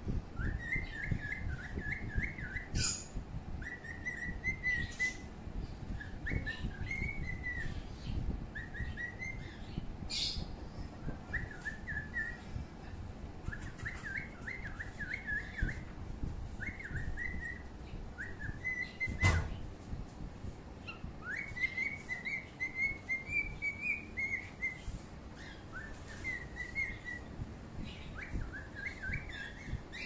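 Pet birds chirping in short, quick warbling phrases, one after another, with a few sharp knocks, the loudest about two-thirds of the way through.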